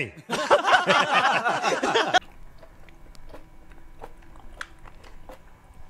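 A man's voice from an inserted Hindi film clip for about two seconds, cut off abruptly. Then a person chewing a mouthful of roti, heard as faint scattered clicks.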